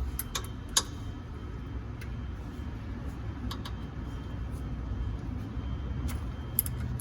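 Scattered light metallic clicks and taps of hand tools working on the water pump's 12mm bolts, irregularly spaced and loudest about a second in, over a steady low hum.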